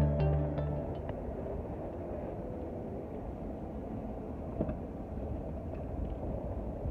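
Steady low rumble of wind and road noise while riding a cargo bike, with background music fading out in the first second.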